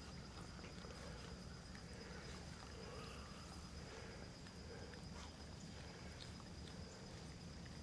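Faint sounds of Australian Shepherd puppies nursing: soft repeated suckling noises and small clicks, over a steady low hum and a faint high whine.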